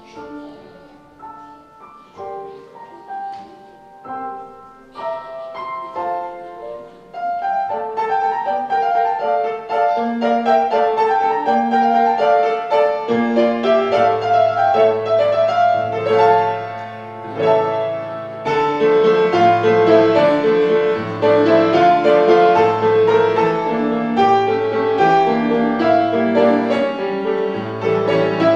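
Piano music: a slow piece that begins softly with sparse single notes, grows fuller and louder about seven seconds in, and adds low bass notes about halfway through.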